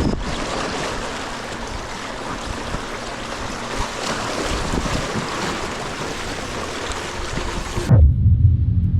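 Wind blowing across the microphone with ocean waves washing in. About eight seconds in, this cuts off suddenly and background music with low sustained notes begins.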